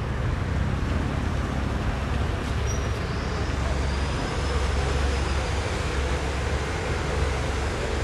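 Indian Railways diesel locomotive approaching with its coaches, a steady low engine rumble.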